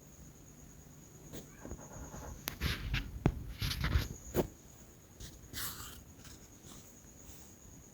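Hands working on electrical wiring: a run of small clicks, taps and scraping rustles of wires and a tool at the terminals, busiest in the middle and then tailing off.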